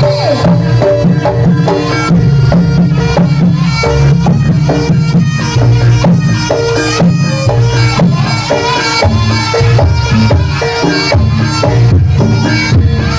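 Traditional Javanese jaranan ensemble music: hand drums and struck, ringing pitched percussion play a dense, steady rhythm.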